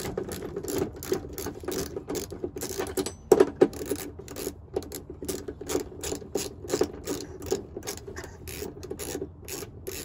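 Ratchet with a 5/8-inch (16 mm) socket clicking steadily, about three or four clicks a second, as it loosens the seat belt receptacle's mounting bolt. Two louder clicks come about three and a half seconds in.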